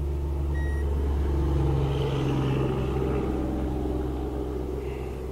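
Steady low motor hum on a bass boat, its pitch wavering a little partway through. A short electronic beep sounds about half a second in.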